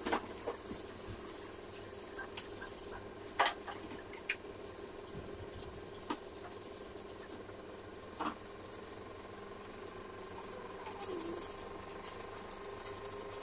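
Handling at a kitchen counter: a few scattered knocks and clinks of kitchen things being moved, over a faint steady hum.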